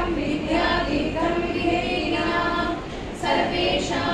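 A woman singing a devotional hymn in praise of the guru, in long held notes, with a short break for breath about three seconds in.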